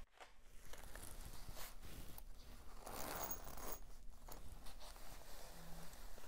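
Rustling and scraping of a plush fabric puppet being squeezed and handled: the cloth chrysalis of a butterfly life-cycle puppet being worked open as the butterfly is pushed out, with a denser rub about three seconds in.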